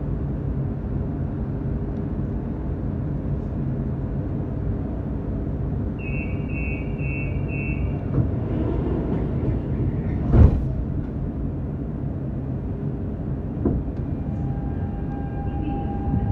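Lisbon Metro train standing at a platform with a steady rumble, then four short high beeps of the door-closing warning, a loud thump a couple of seconds later, and near the end the electric traction motors starting to whine, rising in pitch as the train pulls away.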